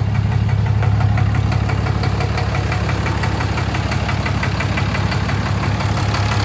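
6.7 Cummins inline-six turbodiesel of a 2013 Ram 2500 idling with a steady, rapid, regular knock over the engine's run. The knock shows up under the light load of the AC compressor at idle; the owner hears it as coming from the bell housing, and a dealer tech suggested it may be a fuel knock or a hung-up injector.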